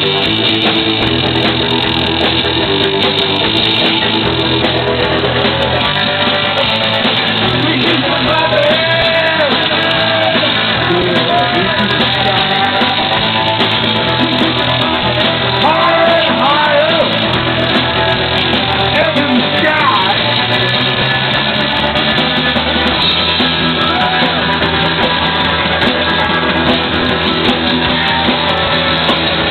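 Rock band playing loud and live: electric guitar, bass guitar and drum kit together in a driving, unbroken song. The sound is dull, with nothing above the upper mids.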